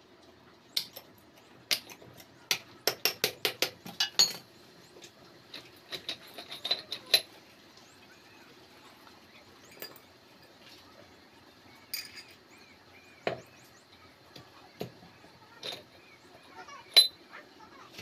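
Steel gears and synchro rings of a Tata 407 GB-20 gearbox main shaft clinking against each other and the shaft as they are handled during assembly. A quick run of about eight clinks comes a few seconds in, then scattered single clinks, the loudest near the end.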